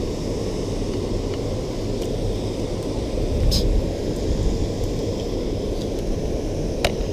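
Steady low rumbling background noise, with a couple of faint clicks, one about halfway through and one near the end.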